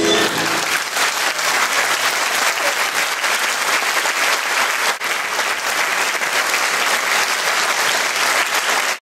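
Audience applauding steadily as the last note of the tango music dies away; the applause cuts off suddenly near the end.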